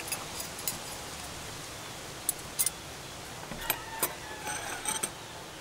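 Scattered light ticks and taps from hands working on a ceramic plate, laying chilli strips over moulded fried rice, over a steady background hiss. Faint bird calls come in near the end.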